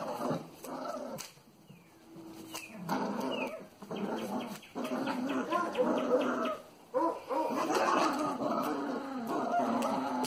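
Cavalier King Charles Spaniel puppies play-growling almost continuously as they tug at a toy together, with a short lull about two seconds in.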